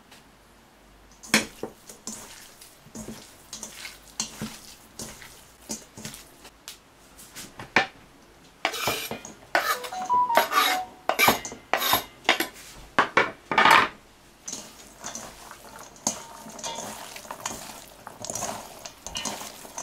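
Kitchen handling sounds: scattered light clicks, then from about nine seconds in a run of loud scraping and knocking as a knife scrapes chopped onion off a wooden cutting board into a stainless steel bowl of raw meat. In the last few seconds, softer wet squishing and rustling as hands mix the meat and onion in the bowl.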